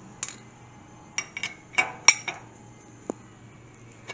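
Hand tools (pliers and wrench) clinking and clicking against the steel hydraulic banjo fittings on a mini excavator's control valve as a fitting is twisted. About seven sharp metallic clicks come at irregular intervals, the loudest about two seconds in.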